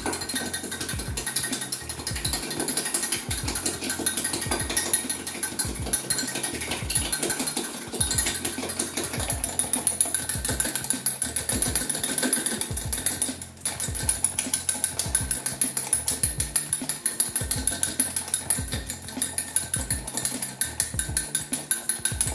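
A whisk beating egg yolks in a glass measuring jug, a fast steady clicking of metal against glass, with a short pause about thirteen seconds in. Background music with a steady beat plays throughout.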